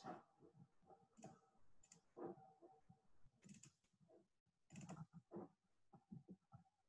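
Near silence: small-room tone with faint, irregular clicks scattered through it.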